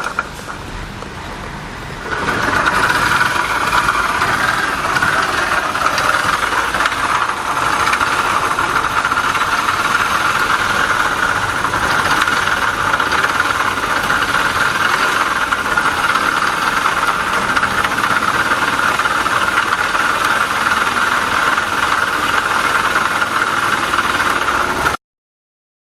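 Honda Little Cub's small single-cylinder four-stroke engine running, with a steady high rubbing whine over it from the transmission, a sound the owner blames on a failing bearing. It gets louder about two seconds in and cuts off suddenly near the end.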